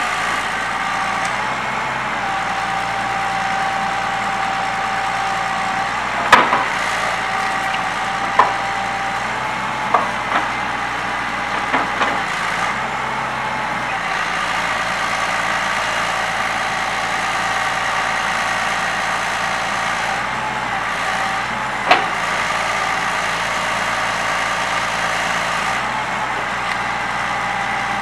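Link-Belt 4300 excavator's Cummins LTA10-C six-cylinder diesel running steadily with a steady whine as the boom and grapple move. A scattering of sharp knocks cuts in, mostly in the first half, with one more late on.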